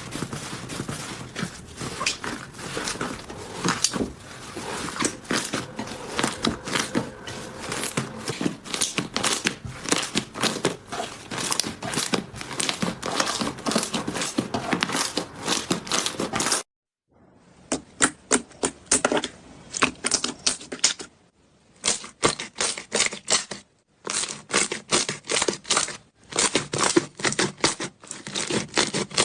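Slime being squeezed, poked and stretched by hand, giving dense clicking and crackling pops. Partway through it cuts to a second slime, heard in short bursts of crackles with brief pauses between them.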